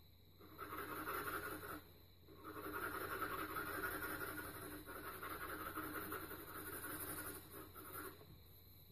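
HB pencil shading on paper: continuous graphite rubbing strokes in two stretches, with a short break about two seconds in, as the sphere's shadow is darkened.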